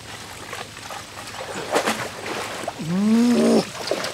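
Water splashing and sloshing as a woven bamboo basket trap is hauled out of a shallow stream. About three seconds in, a loud call, rising in pitch and then held for most of a second, comes from an unseen animal or voice.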